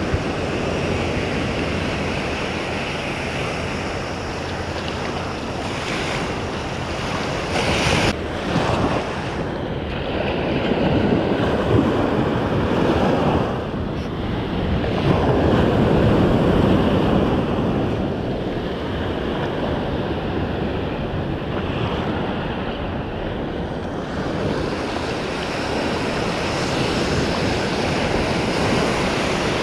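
Ocean surf washing and breaking in the shore break around the angler's legs, a steady rush of water that swells louder about halfway through, with wind buffeting the microphone.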